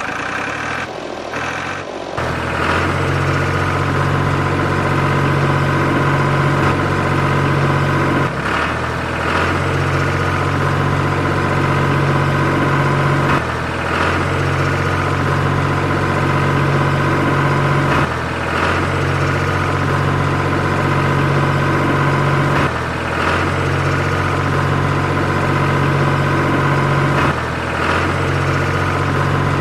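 Steady engine-like drone, like a tractor running at idle. It starts abruptly about two seconds in and has brief dips about every four and a half seconds.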